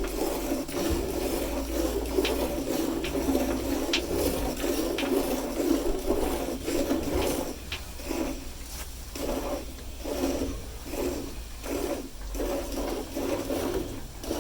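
Milk squirting from a cow's teats into a pail during hand milking, a rhythmic rasping hiss. About halfway through, the strokes separate into distinct squirts about twice a second.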